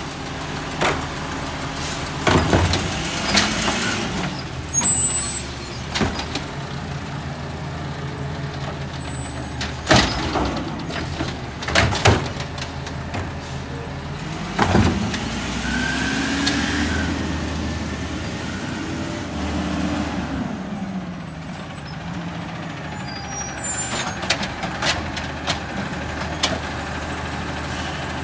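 Natural-gas automated side-loader garbage truck at work: the engine runs steadily and revs up and back down once, while the automated arm lifts and empties carts, with repeated bangs and clanks of carts striking the hopper and being set back down, and short air-brake hisses.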